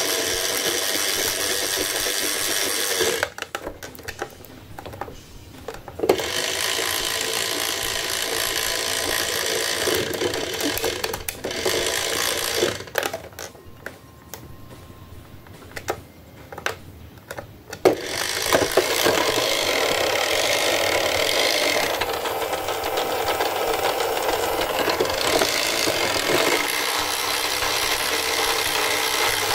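Road Rippers Turbo Rig toy truck playing its electronic engine sound effects through its small speaker, glitching on low batteries. The sound cuts out twice for a few seconds, about three seconds in and again from about thirteen to eighteen seconds, before running on.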